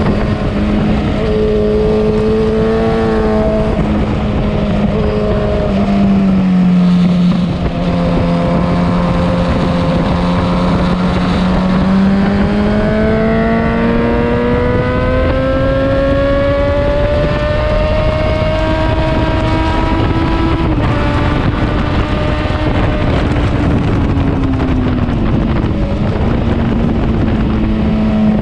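Motorcycle engine at track speed, heard onboard, with wind rushing over the microphone. The revs hold, dip, then climb steadily for several seconds before dropping sharply, and sag again near the end as the bike shifts gears and brakes into corners.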